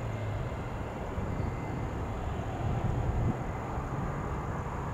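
Jet airliner engines rumbling steadily, a low continuous roar.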